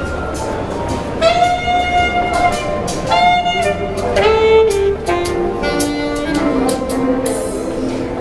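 Live music: a solo melody of long held notes on a wind instrument in a jazz style, the notes stepping lower in pitch toward the end, over steady background noise.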